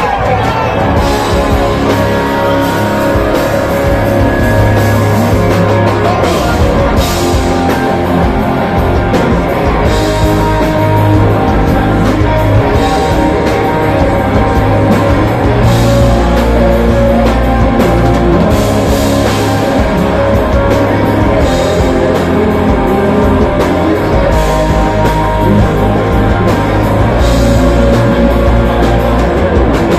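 Rock band playing live and loud: electric guitars, bass guitar and drums.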